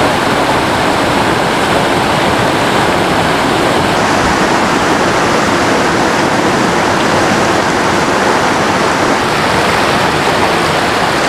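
Water of a rocky stream running over small cascades and boulders: a steady, even wash.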